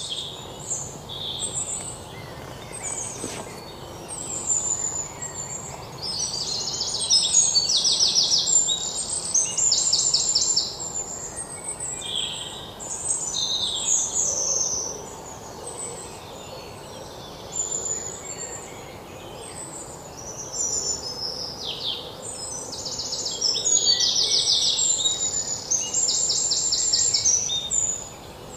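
Several birds singing and chirping, calls overlapping, with bursts of rapid trilling notes recurring throughout, over a faint steady outdoor background.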